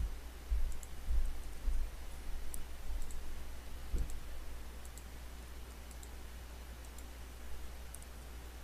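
Scattered computer mouse clicks, a few faint sharp ticks, over a steady low electrical hum. A few dull low thumps come in the first half.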